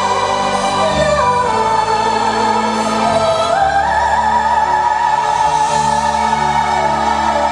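Soprano singing long, wordless held notes over orchestral and keyboard accompaniment. The sung line steps down about a second in and rises again midway, over a sustained low bass.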